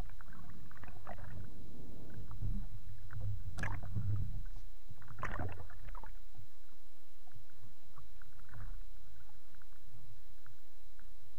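Sea water sloshing and splashing at the surface as a swimmer moves through small waves, over a steady low rumble. Louder splashes come a little under four seconds in and again around five and a half seconds.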